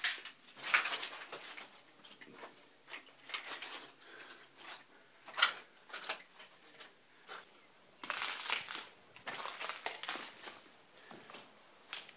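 Footsteps crunching over rubble and broken tile debris, in irregular clusters of short gritty crunches.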